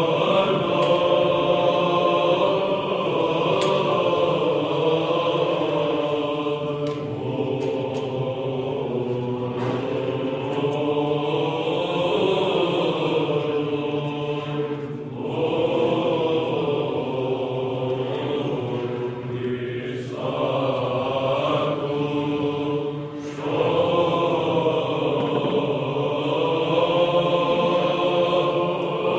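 Eastern Orthodox chant by a group of voices: long held, slowly gliding notes over a steady low drone, with brief breaks between phrases about halfway and two-thirds of the way through.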